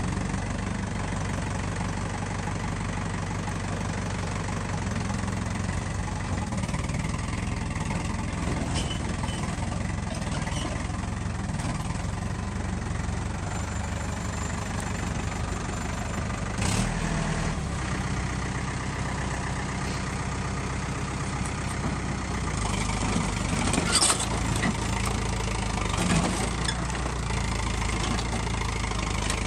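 Farm tractor engine running steadily while working the front-end loader, its note shifting a few times. A sharp knock partway through and a cluster of knocks and crunches near the end come from the loader bucket working on the old cooler.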